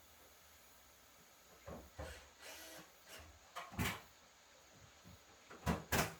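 A run of irregular knocks and clatters, about half a dozen, the loudest two close together near the end.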